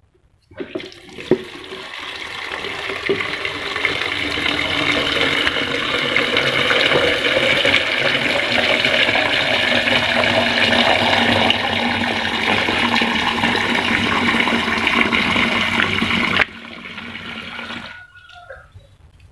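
Water running from a wall tap into a plastic jug, filling it. The flow starts about a second in, builds over a few seconds and runs steadily, then drops sharply to a thin trickle near the end.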